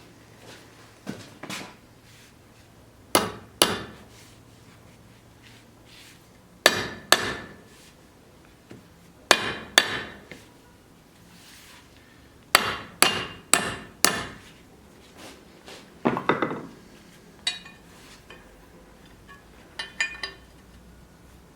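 Hammer blows on metal, in short irregular groups of two to five strikes with pauses between, each with a brief ringing tail.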